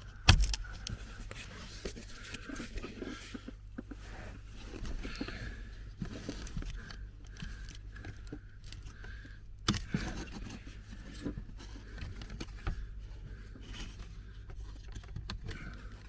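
Plastic scraping, rustling and small clicks of the heater blower fan being worked out of its housing under a car dashboard, with a sharp knock just after the start and another about ten seconds in.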